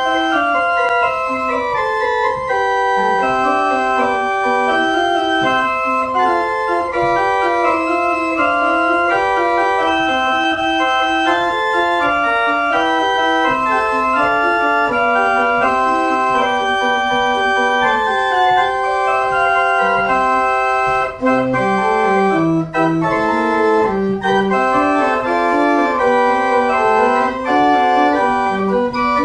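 Pipe organ played live: several lines of held and moving notes sounding together at a steady, full volume.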